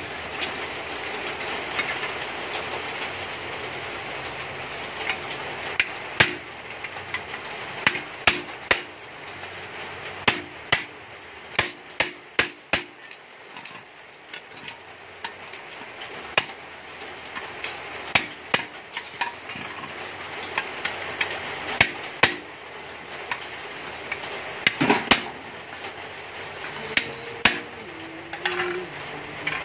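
Sharp, irregular metal knocks and taps on a steel motorcycle muffler canister as its cut section is worked loose by hand. The strikes come in quick clusters, most densely in the first half, over a steady hiss.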